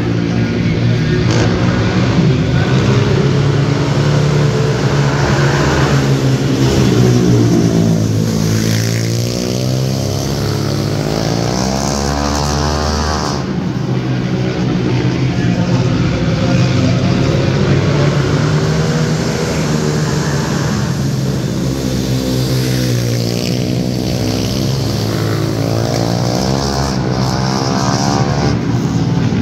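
Small 50–90cc shifter quads racing around a dirt oval. Their engines rev up and down in repeated rising and falling sweeps as they accelerate out of the turns and back off into them.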